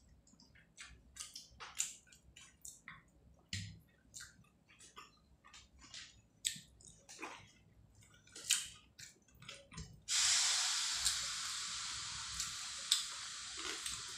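Rice and prawn curry being squished and mixed by hand on a plate: a run of short wet clicks and squelches. About ten seconds in, a steady hiss starts suddenly and fades slowly while the mixing goes on.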